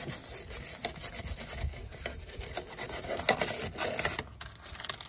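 Hand wire brush scrubbing the rusty metal bump-stop cup on a Citroën DS rear swing arm: rapid, irregular rasping strokes of wire bristles on rusty metal that ease off near the end.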